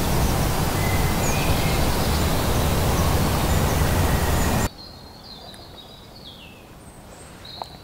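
Loud, steady outdoor rushing noise with birds chirping faintly through it. It cuts off abruptly about four and a half seconds in, leaving quieter birdsong.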